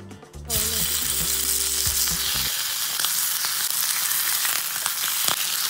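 Raw bacon strips sizzling in a hot oiled frying pan, a loud steady sizzle that starts suddenly about half a second in as the strips go into the pan.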